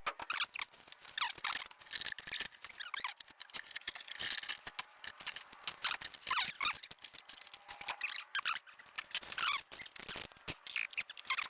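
Faint, scattered high squeaks and short clicks, irregular and without a steady rhythm.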